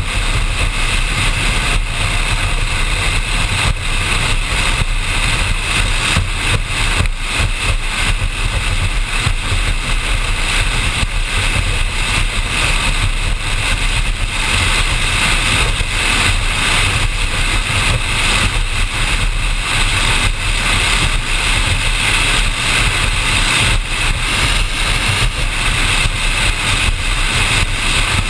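Offshore powerboat running steadily at speed, its engines droning under a constant rush of wind and water on the bow-mounted microphone.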